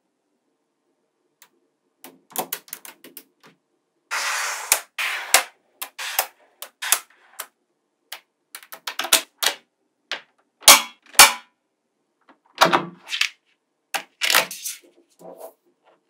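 Small magnetic balls clicking and clacking as they snap together and are set down in slabs and sheets: irregular sharp clicks, a dense rattle of many balls about four seconds in, and two loud snaps around eleven seconds.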